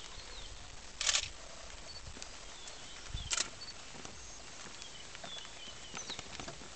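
Outdoor meadow ambience with scattered short, high chirps and faint ticks, and two short hisses, one about a second in and one a little after three seconds in.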